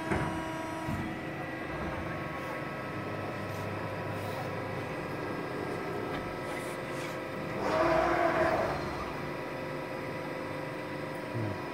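CNC press brake running: a steady hum from its Siemens-driven Hoerbiger hydraulic system and servo drives, with a louder rushing surge lasting about a second roughly two-thirds of the way through as the machine moves.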